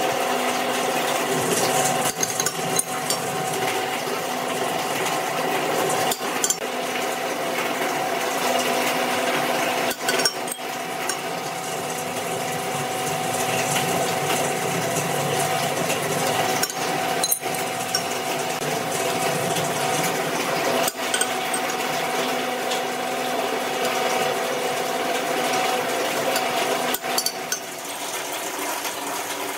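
Bench drill press running steadily with a constant motor hum while its bit drills through square steel tubing, interrupted briefly a few times.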